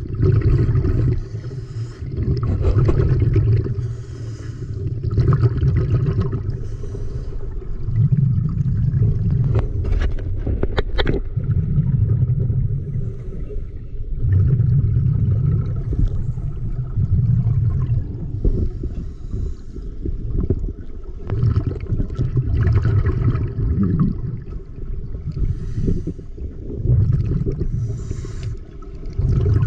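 Muffled underwater water noise picked up by a GoPro in its waterproof housing while a swimmer moves through shallow water. Dull surges come every two to three seconds, with a brief cluster of clicks about ten seconds in.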